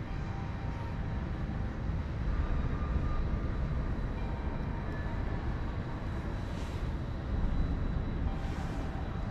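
Steady low rumble of background noise in a large, cavernous industrial hall, with two brief hisses in the second half.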